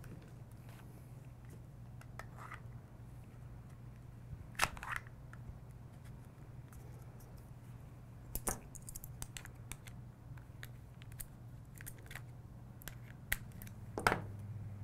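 Scattered small clicks and taps of a Glock 19 pistol and a small rail-mounted training sensor being handled and fitted together, with a few louder knocks about four and a half, eight and a half and fourteen seconds in, over a low steady hum.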